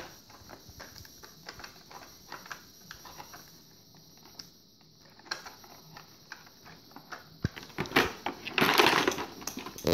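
Small plastic toy cars and figurines clicking and tapping as they are handled on a tabletop, with a louder burst of sound about a second long near the end.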